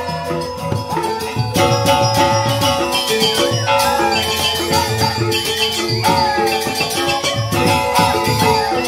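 Joged bumbung gamelan music: bamboo xylophones (grantang) play a fast, repeating interlocking pattern over kendang drums. The music gets louder about a second and a half in.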